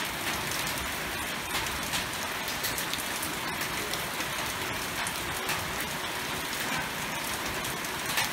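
Steady rain falling on garden plants and a wet tiled path, with a few sharper drops now and then.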